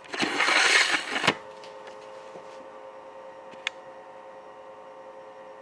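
A short hissing rush about a second long that ends in a sharp click, followed by a steady electric motor hum from the grinding setup, with one more light click partway through.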